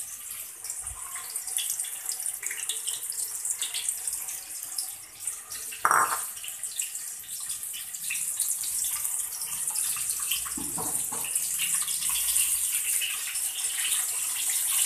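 Spice paste frying in hot oil in a wok: a steady high sizzle with fine crackles, getting louder near the end. There is a single sharp clank about six seconds in.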